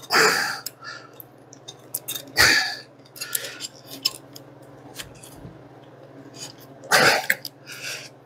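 Three short, breathy bursts like sharp exhales or sniffs, near the start, about two and a half seconds in and about seven seconds in, with light clicks of small parts and wires being handled between them over a faint steady low hum.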